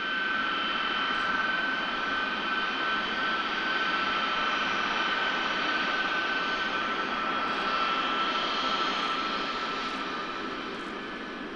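Aircraft flying past with a steady, high engine whine over a broad rush of engine noise. It swells in at the start, the whine's pitch drops slightly during the second half, and it fades near the end.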